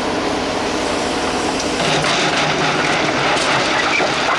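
JCB backhoe loader's diesel engine running steadily while its bucket scrapes and pushes gravel ballast on the railway track.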